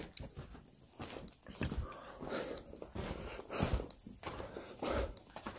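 Breathing and scuffing of a person moving over loose rock rubble inside a lava tube cave: a few soft noisy breaths and scrapes about a second apart.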